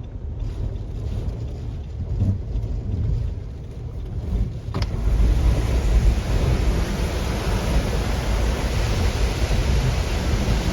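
Strong hurricane wind buffeting the microphone, a low rumbling roar over a car's running noise. About five seconds in there is a click and the wind noise becomes louder and hissier.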